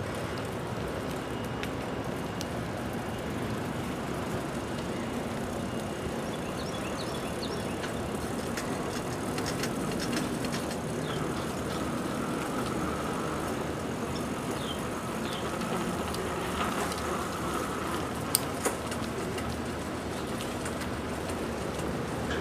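Steady rolling rumble and hiss of a bicycle ride along a paved trail, with a couple of sharp clicks or knocks about eighteen seconds in.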